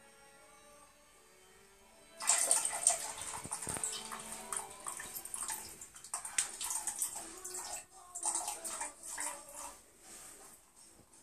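Calico cat urinating into the water of a toilet bowl: a splashing, trickling stream that starts about two seconds in and goes on unevenly, swelling and easing, before tailing off near the end.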